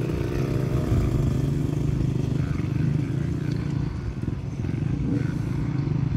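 Dirt bike engine running, its level dipping briefly about four seconds in.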